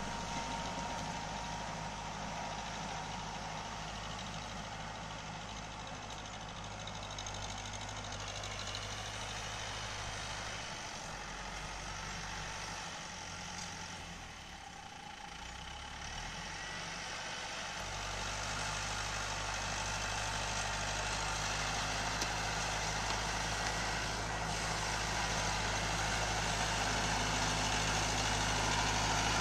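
Tractor diesel engine running steadily as it pulls a rotary tiller through the soil. The sound fades for a few seconds around the middle, then grows louder toward the end as the tractor comes closer.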